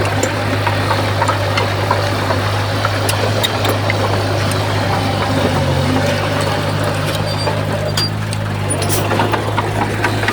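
Komatsu D51PX bulldozer's diesel engine running steadily with a deep hum, its note stepping up a little about halfway through, with scattered clicks and clanks over it.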